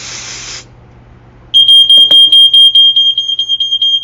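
Aerosol smoke-detector test spray hissing briefly, then about a second and a half in a Dicon 300 smoke alarm goes off with a loud, high-pitched, rapidly pulsing tone, set off by the test smoke: the alarm's sensor works. A single knock comes just after the alarm starts.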